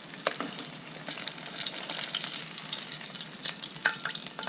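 Hot oil sizzling and crackling around a whole fish frying in a stainless steel pot, with many small pops. Near the end a metal spatula clicks and scrapes against the pot as the fish is lifted out of the oil.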